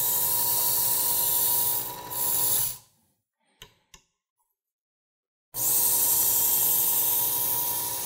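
Work Sharp electric belt knife sharpener running while a hunting knife blade is drawn through its guide against the abrasive belt: a steady motor whine with a grinding hiss. It cuts off a little under three seconds in, and after a pause with two light clicks it starts again about five and a half seconds in for another pass.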